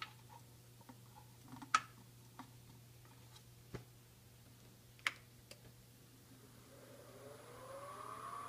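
A few scattered sharp clicks and knocks from hands working at the wood lathe's spindle, over a low steady hum. Near the end the lathe's motor starts, and its whine rises in pitch as it spins up to speed.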